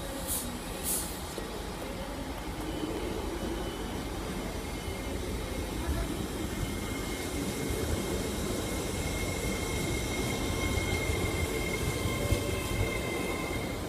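LNER Class 801 Azuma electric train pulling away: a steady high whine over a rumble that grows slowly louder as the train moves past, with a few sharp clicks near the end.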